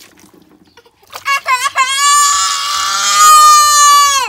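Baby crying while having water poured over its head during a bath: a few short cries about a second in, then one long, loud wail that cuts off near the end.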